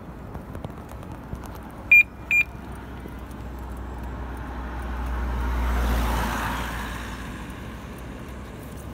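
Two short, high electronic beeps half a second apart, then a road vehicle passing by, its rumble swelling and fading over about three seconds.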